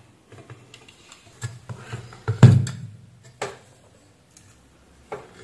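Handling noise from an inverter welder's circuit board in its metal chassis being moved and set down on a workbench: scattered light clicks and knocks, with one louder thump about two and a half seconds in.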